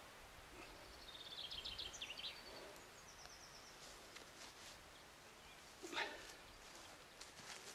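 Faint woodland ambience with a small bird singing: a quick trill of high notes about a second in, then a few short high notes. A single brief scuff comes about six seconds in.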